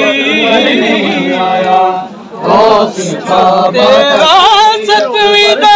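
Group of men chanting a noha, a Shia mourning lament, in loud overlapping voices; the chanting drops away briefly about two seconds in and then picks up again.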